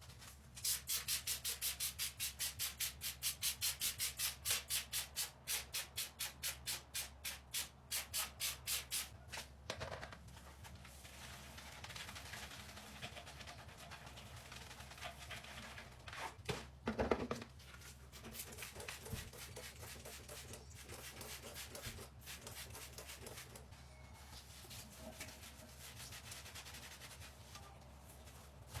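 Sink being scrubbed by hand: quick, even back-and-forth scrubbing strokes, about four a second, for roughly the first nine seconds. Then quieter, less regular rubbing, with a short louder scrape a little past the middle.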